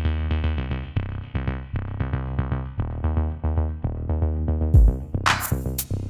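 Electronic background music: a pulsing synthesizer line, with a drum-machine beat of snare or hi-hat hits and a deep kick coming in about five seconds in.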